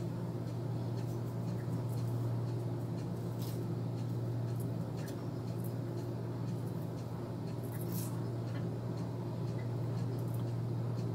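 A steady low electrical hum, with a few faint, soft scratches as a small edge brush smooths the baby hairs along the hairline.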